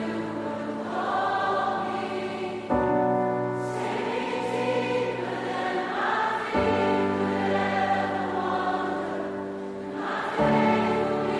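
Background music: a choir singing long held chords, a new chord entering about every four seconds, in the style of gospel or worship music.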